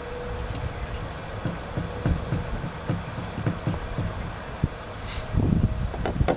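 Close handling noise from working small wooden parts by hand: irregular light clicks and knocks over a low rumble, with a few sharper clicks near the end.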